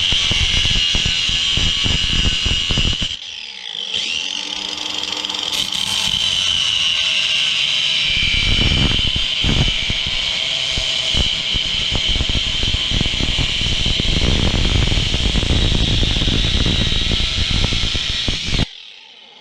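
A power tool running under load with a steady high whine. It eases off briefly about three seconds in and stops suddenly near the end.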